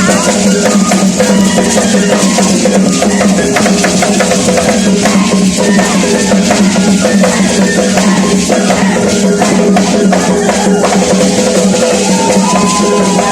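Big drums played together in loud, continuous, dense drumming, the strokes running without a break.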